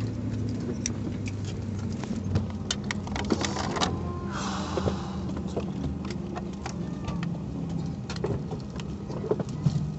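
Parked airliner cabin ambience: a steady low hum from the aircraft's systems, with scattered clicks, knocks and rustling from passengers, and a short hiss a little over four seconds in.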